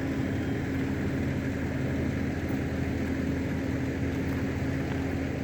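A vehicle engine idling, a steady, even hum that holds constant pitch throughout.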